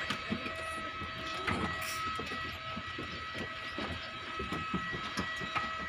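Parked jet airliner giving off a steady whine of several high tones over a rushing hum, with irregular knocks of footsteps on metal boarding stairs.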